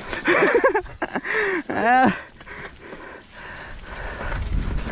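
A person's voice in two short cries, the second rising in pitch, followed by a steady hiss.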